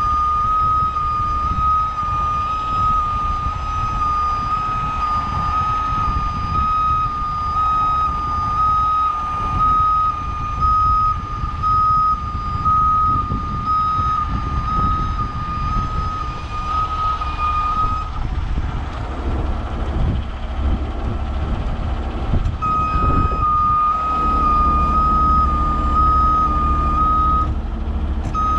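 Heavy rotator tow truck's backup-style warning alarm beeping about once a second over its running diesel engine, as the boom is moved. The beeping stops for a few seconds past the middle, then starts again.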